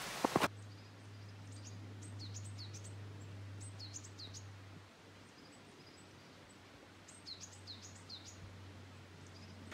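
Footsteps on a snowy trail for the first half second, then small birds calling: short, quick chirps that fall in pitch, in several bursts, over a faint low steady hum.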